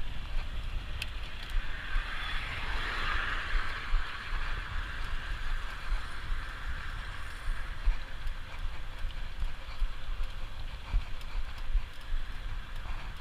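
Mountain bike riding along a trail: wind buffeting the microphone in an uneven low rumble, with scattered clicks and rattles from the bike. A hiss swells about two seconds in and fades out a few seconds later.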